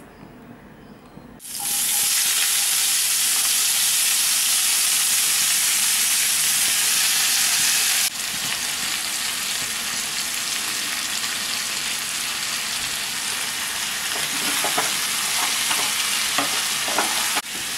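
Sliced onions sizzling loudly as they drop into hot oil in a nonstick pan, the sizzle starting suddenly about a second and a half in. Near the end a wooden spatula scrapes the pan as the onions and curry leaves are stirred.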